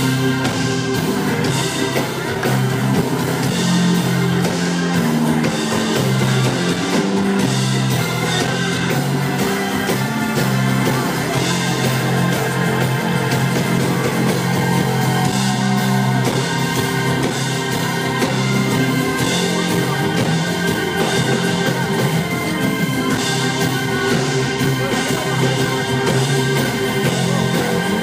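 Live rock band playing on a concert PA, with guitars and drums, heard from within the audience.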